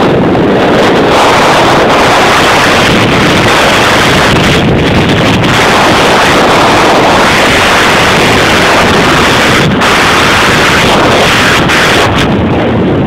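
Loud, steady wind rushing over the microphone of a camera carried by a skier going fast downhill.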